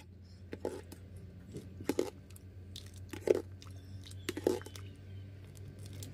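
Pot of thick mung bean porridge with barley and glutinous-rice flour balls bubbling and stirred with a ladle: soft irregular plops and knocks every second or so, over a steady low hum.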